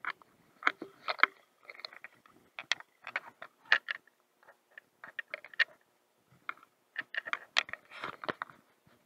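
Irregular clicks, knocks and splashes as a hooked rainbow trout thrashes at the surface and is played in with a baitcasting outfit. Noisier bursts of splashing come about two seconds in and again around eight seconds in.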